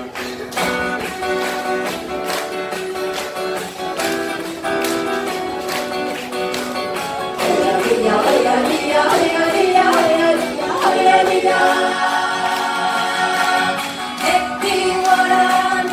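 Acoustic guitar ensemble strumming chords to a steady beat, played live. A group of voices joins in singing about halfway through.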